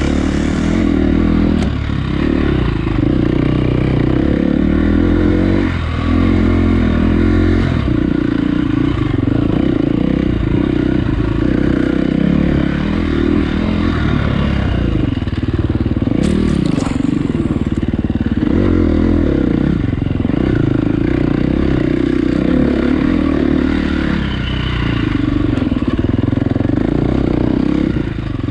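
Dirt bike engine running hard while being ridden, its pitch rising and falling as the throttle opens and closes. A few knocks and rattles sound over it, including one about a second and a half in and a cluster about sixteen seconds in.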